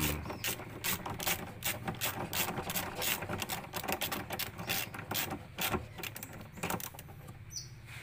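Socket ratchet clicking in quick runs as the nut holding a top-load washing machine's drive pulley is tightened clockwise.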